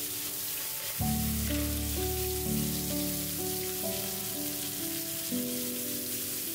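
Kitchen faucet running a steady stream of water onto metal tools in a plastic tray, a continuous splashing hiss. Soft background music plays along with it, its bass line coming in about a second in.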